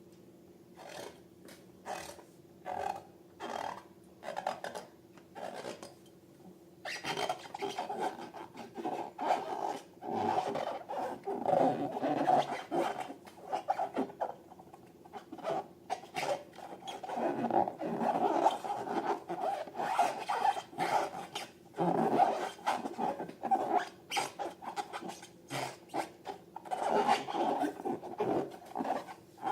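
Slime being squished and worked by hand, giving wet crackles and clicks. It starts as a few short squishes about half a second apart, then becomes dense, continuous crackling from about seven seconds in, with brief pauses.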